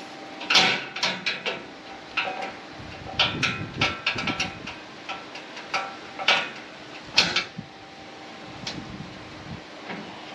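Tie-down strap hardware being worked while a motorcycle is strapped down for transport: irregular sharp metal clanks and clicking rattles in several clusters, over a steady low hum.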